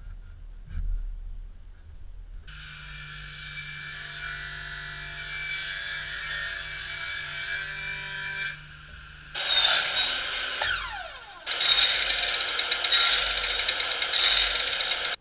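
Power saws cutting wood. A table saw runs steadily for several seconds, then a mitre saw makes two loud cuts, its pitch falling between them. A few light knocks come first.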